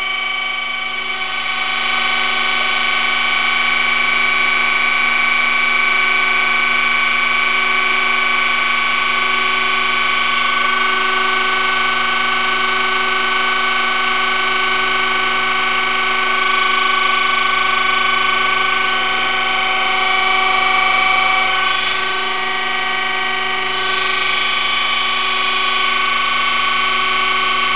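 Surface grinder's wheel grinding the outside diameter of a hardened steel drill bushing spinning on a tapered mandrel between motor-driven electric centers. It makes a steady, even sound of several held tones over a grinding hiss, taking a light finishing pass.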